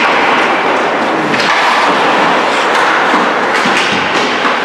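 Ice hockey play in an arena: a steady wash of skates on the ice and rink noise, with a few sharp clacks of sticks and puck.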